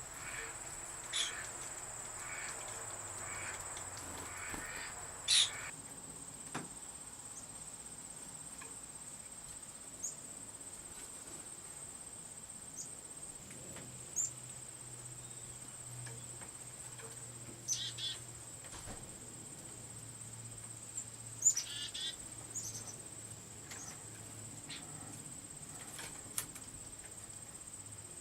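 Steady high-pitched insect chorus of crickets or katydids, with short bird calls now and then, the loudest about five seconds in and several more near the two-thirds mark.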